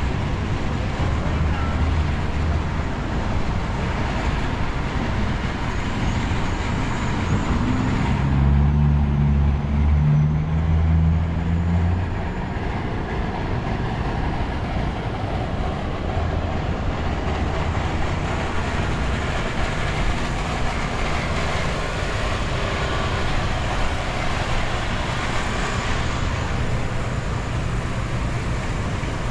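Downtown street traffic: a steady wash of passing vehicles, with a deep engine drone loudest from about eight to twelve seconds in.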